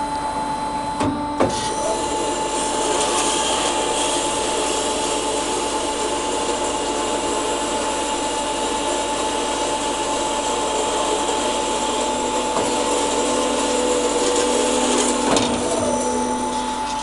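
Beka-mak BMSO 320 GLH automatic bandsaw running its blade through a length of wood on an automatic cut: a steady whine with a sawing hiss. A clunk comes about a second in, and another about fifteen seconds in.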